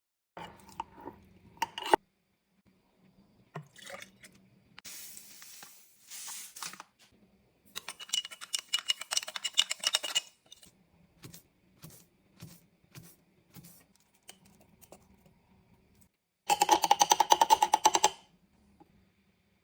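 Kitchen food-prep sounds: scattered clicks and knocks of utensils and containers, with two stretches of rapid clinking, about eight seconds in and again near the end.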